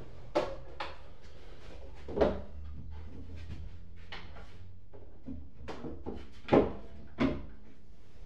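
A string of knocks and clunks as music gear is handled and set down on a wooden desk shelf, about seven in all, the loudest about two-thirds of the way through.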